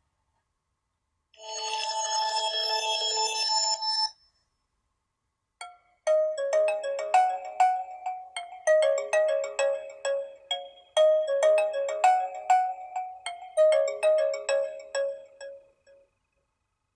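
HTC Desire C ringtones playing. First comes a held chord of several tones lasting about three seconds. After a short pause, a melody of quick struck notes starts, its phrase repeating about every two and a half seconds before it stops.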